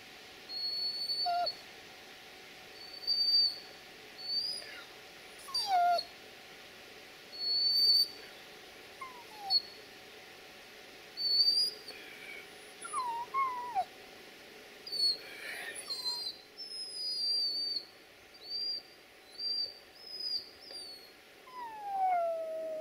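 A dog whining in a series of short, high-pitched whimpers that fall in pitch, coming every one to two seconds.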